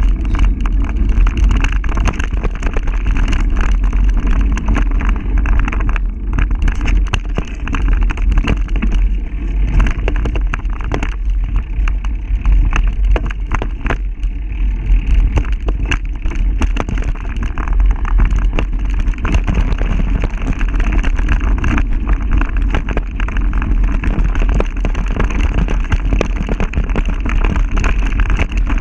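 Steady rumble of wind buffeting a mountain-bike-mounted camera microphone, with constant rattling clicks as the bike rolls fast over a rough dirt singletrack.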